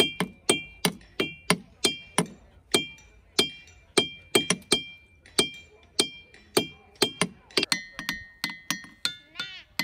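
Diabase boulders struck with hammers, about three blows a second, each a sharp metallic clink followed by a ringing, bell-like tone. A little before the end the ringing shifts to a different, lower pitch and the blows come closer together.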